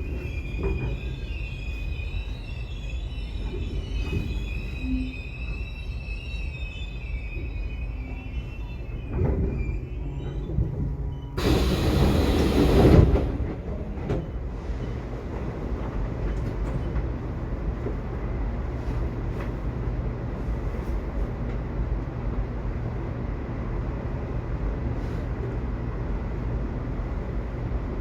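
Subway train running, its wheels squealing in high tones for the first ten seconds or so over a low rumble. About twelve seconds in comes a loud hissing rush lasting a second and a half, then a steady low rumble.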